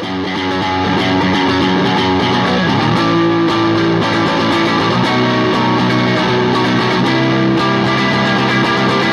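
Electric guitar playing a passage of picked notes and chords.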